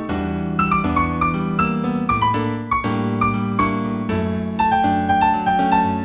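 Instrumental new-age piece in D major, played with an app-generated piano sound. A quick melody of short notes moves up and down over held low notes that change about once a second.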